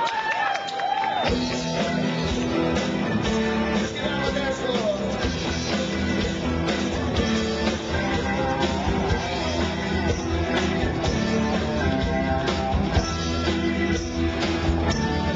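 Live rock band launching into a rock-and-roll song about a second in, then playing on at full volume with a steady beat and guitar.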